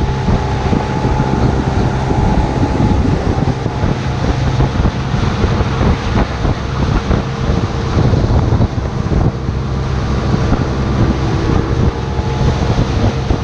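Motorboat engine running steadily under way, with wind buffeting the microphone and water rushing past the hull.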